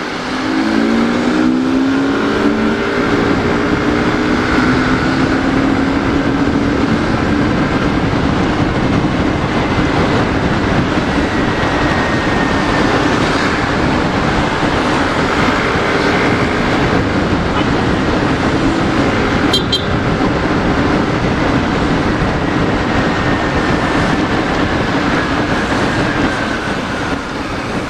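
Wind rushing over a helmet-mounted mic on a moving motorcycle, with the bike's engine underneath. The engine rises in pitch as it accelerates just after the start, and again around the middle. There is one sharp click a little past the middle.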